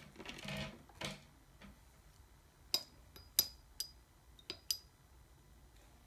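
Long plastic false nail tips clicking: five sharp clicks in the second half, each with a brief ring, after a short rustle near the start.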